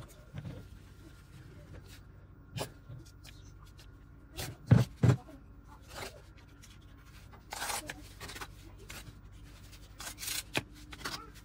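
Hand screwdriver backing T10 Torx screws out of a cordless drill's plastic housing, with small clicks, scrapes and rustling as the drill is handled and turned over. Two heavy knocks come close together about five seconds in.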